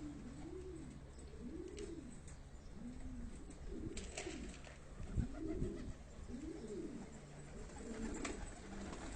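Domestic pigeons cooing, a run of rising-and-falling coos about one a second. A few sharp clicks and a dull thump come about five seconds in.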